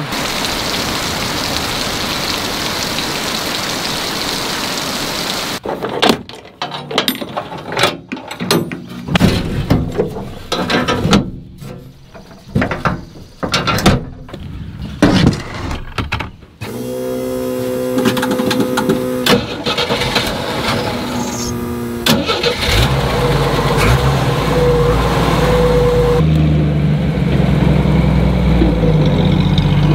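Steady rain falling on a metal shed roof for the first few seconds, then a series of clanks and knocks as buckets are handled and loaded onto a vehicle. In the last third an old Jeep's engine is started and keeps running.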